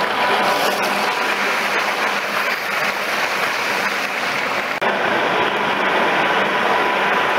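Model trains running on an exhibition test track: a steady rolling rumble of wheels on rail mixed with hall background noise, with a faint steady whine at times.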